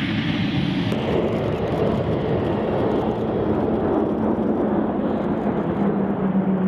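Twin turboprop engines of E-2D Advanced Hawkeye aircraft droning steadily in flight, with a low propeller hum that grows stronger as one aircraft passes overhead. The sound changes character about a second in.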